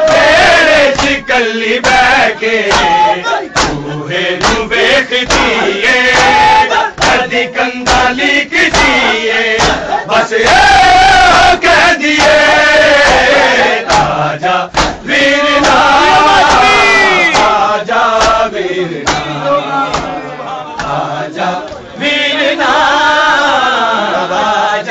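A crowd of men chanting a nauha, a Muharram lament, in unison. It is cut by sharp slaps at about two a second, the beat of chest-beating (matam) keeping time.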